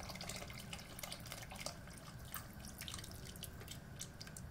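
Faint splashing and trickling of chicken cooking broth poured in a stream into a cast-iron pot of shredded chicken, with many small scattered splashes; the stream thins to drips near the end.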